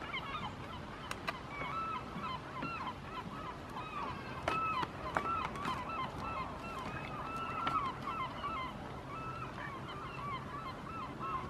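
A flock of birds calling continuously in short, overlapping rising-and-falling notes, with a few sharp clicks among them.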